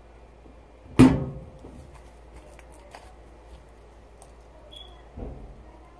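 A sharp slap about a second in, with a short ringing decay, as a hand slaps slime down on a tabletop; a softer thump follows near the end.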